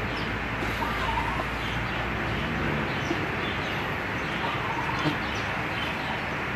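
Steady whooshing noise of a running electric fan, with a few faint, brief animal calls about a second in and again past the middle.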